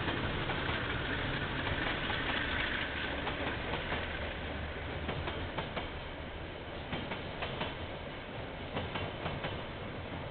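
A KiwiRail train rolling past, heard through a security camera's microphone: a steady low rumble with a higher rushing sound that fades after about three seconds, then a run of sharp clicks as the wheels pass over the rail joints.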